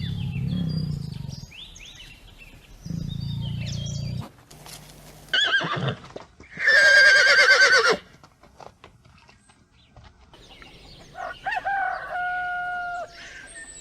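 A sequence of farm animal calls: two low, deep sounds, then a horse whinnying loudly with a wavering pitch, then a rooster crowing, holding one steady note near the end.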